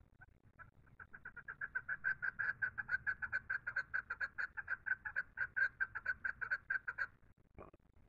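Chukar partridge calling: a rapid run of repeated notes, about seven a second, that swells in loudness over the first two seconds and stops abruptly about seven seconds in. One short separate note follows near the end.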